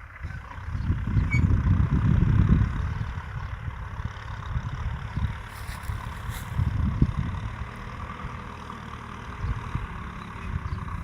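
Kubota M6040 SU tractor's diesel engine running under load while ploughing, louder between about one and three seconds in.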